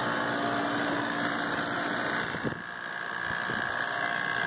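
A machine running steadily, with a continuous high whine over a noisy hum.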